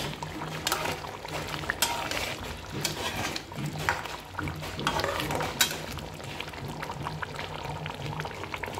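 Thick fish curry simmering in a metal pan while a spatula stirs it. The spatula scrapes and clicks against the pan now and then, most often in the first half, over a steady low hum.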